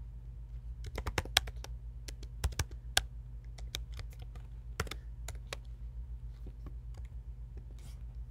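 Typing on a computer keyboard: keystrokes in short runs, thinning out after about five seconds, over a steady low hum.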